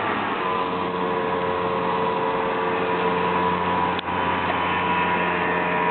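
A speedboat's Mercury 2.5-litre V6 engine running steadily at speed on the water: a steady hum with a few held tones, slowly growing louder. A short click comes about four seconds in.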